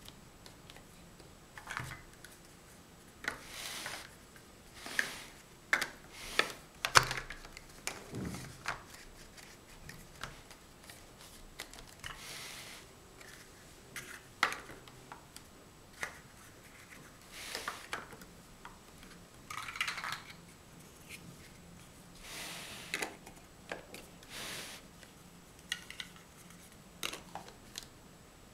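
Large hollow plastic Mega Bloks First Builders blocks being picked up, pressed onto each other and set down: irregular clicks, knocks and short rattling scrapes of hard plastic, the sharpest knock about seven seconds in.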